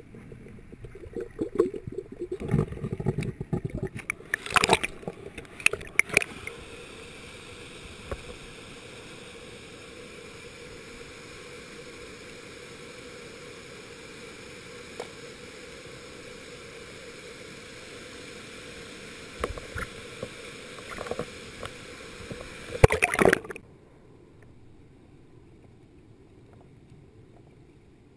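Handheld action camera in a mountain stream: the bed stones and the camera knock and bump irregularly, then there is a steady rush of flowing water. A few more knocks follow, and about five seconds before the end the sound drops abruptly to a quieter, muffled hiss as the camera goes back under the water.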